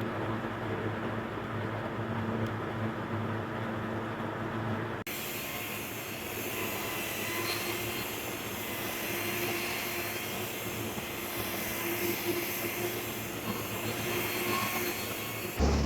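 Power tools running steadily. About five seconds in the sound switches abruptly from a lower hum to a brighter, hissier whine.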